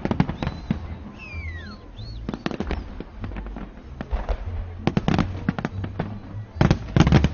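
Fireworks going off in clusters of sharp bangs, with a whistle falling in pitch about a second in. The loudest, densest volley comes near the end.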